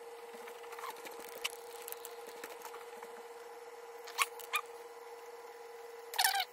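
A Phillips screwdriver working the screws out of an electric motor controller's battery-lead terminals: a few light metal clicks and squeaks, the sharpest about four seconds in and a quick cluster near the end, over a faint steady hum.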